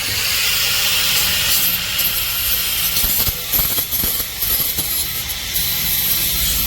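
Spray paint hissing steadily as it is sprayed over rusty metal on the washing machine, with a few short breaks in the middle.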